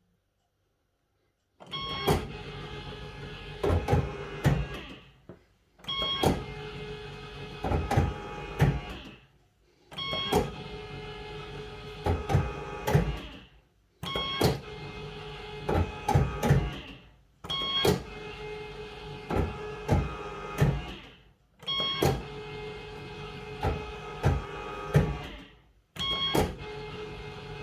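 1982 Bellfruit Firecracker fruit machine spinning its reels again and again, about every four seconds, after a short silence. Each spin opens with a short tone, runs with a mechanical whir, and ends with a run of clunks as the reels stop.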